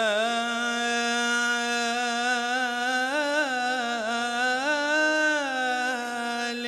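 A man's solo voice chanting Arabic religious inshad, unaccompanied: one long held note whose pitch rises and dips in melismatic ornaments.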